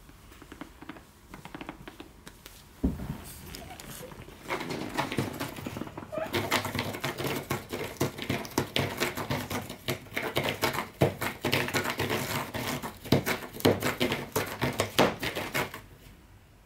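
A cat clawing a corrugated-cardboard scratcher: a long run of quick rasping scratches that starts about four and a half seconds in and stops shortly before the end. There is a single thump about three seconds in.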